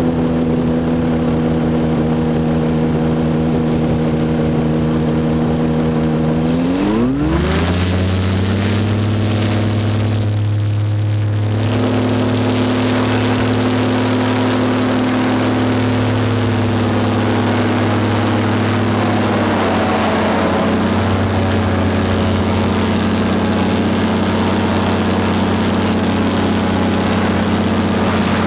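Paramotor engine and propeller running steadily. It revs up sharply about seven seconds in, holds that speed, then eases back a little near twenty seconds.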